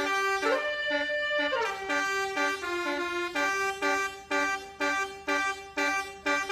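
Telolet (basuri) multi-tone bus horn playing a tune: a run of short, repeated horn notes stepping between pitches, with a few longer held notes.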